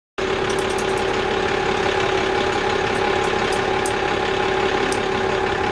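An engine idling steadily, with a constant hum over an even rumble.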